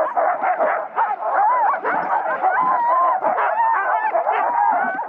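A team of harnessed sled huskies barking, yipping and yelping together in a continuous, overlapping chorus. They are impatient to run while the sled is held stopped on its brake.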